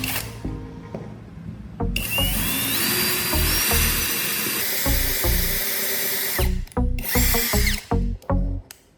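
Handheld electric power tool running, its motor whine rising in pitch as it spins up, for about four and a half seconds starting about two seconds in, then briefly again near the end. Background music with a pulsing bass beat underneath.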